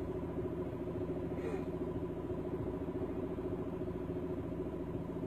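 A vehicle engine running steadily under way, heard from on board, with road rumble underneath.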